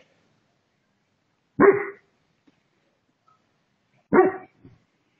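A dog barking during play with another dog: two single barks about two and a half seconds apart.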